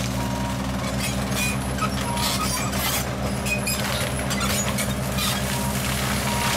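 Picursa forestry mulcher head on a hydraulic tracked carrier grinding brush: the carrier's engine runs at a steady drone under load, with scattered sharp cracks and ticks of wood and debris hitting the spinning rotor.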